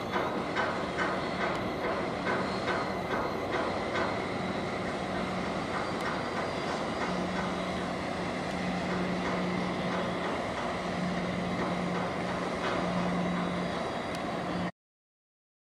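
Machinery clattering in a steady rhythm of about three knocks a second, fading out partway through, then a steady low hum. The sound cuts off suddenly near the end.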